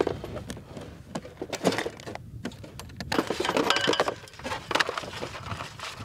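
Metal clatter of drone parts and aluminium transport cases being handled and packed: irregular clicks and knocks in clusters, some with a brief metallic ring.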